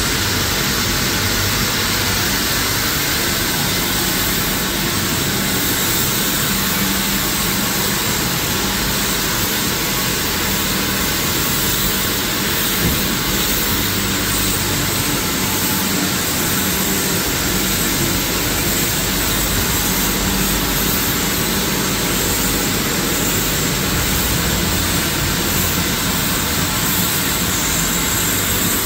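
High-pressure wand of a Mark VII (WashTec) Aquaspray self-serve wash bay spraying water onto a car's bodywork: a steady hiss of spray, with a low steady hum beneath.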